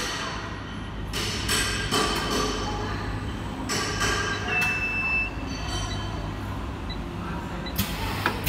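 Cup face mask ultrasonic welding and trimming machine running: a steady hum with irregular mechanical clacks from the press and rotary table. A brief steady high tone sounds about five seconds in, and louder clacks come near the end.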